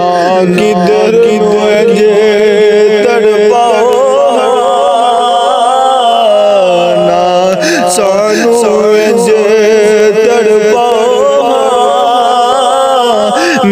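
A man singing a Punjabi Sufi kalam, holding long, wavering ornamented notes over a steady low tone.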